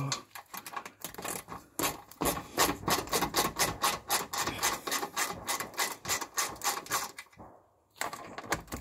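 Hand ratchet clicking rapidly, several clicks a second, as a 10 mm bolt on the car's plastic underbody shield is worked. The clicking pauses briefly near the end, then starts again.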